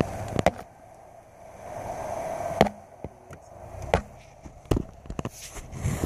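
Irregular sharp knocks and clunks over a low steady running noise as a Subaru Legacy GT jolts slowly over a rough, grassy off-road trail, with a rising rush of noise a couple of seconds in.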